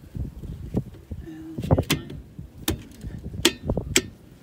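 Chrome hubcap being pressed and knocked onto a trailer wheel by hand: a run of sharp metallic clicks and knocks, the strongest four in the second half.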